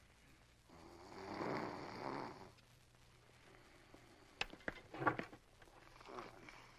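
An old man snoring once, a single snore lasting about two seconds. About four to five seconds in come a few light clicks of a spoon against a plate.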